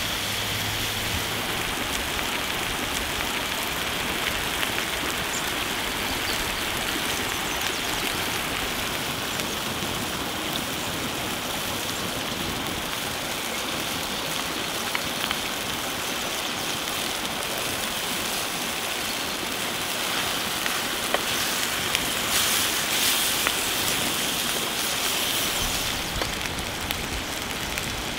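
Beef rendang simmering in its coconut sauce in a pan over an open fire: a steady sizzle and bubbling, sprinkled with small pops and crackles, a few of them louder about three-quarters of the way through.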